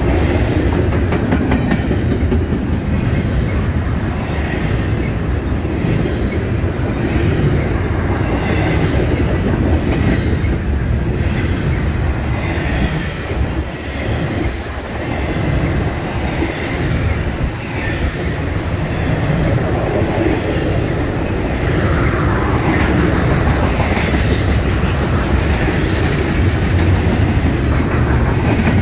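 Double-stack intermodal well cars of a freight train rolling past close by: a steady low rumble of steel wheels on rail, with sharp clicks as the wheels cross the rail joints.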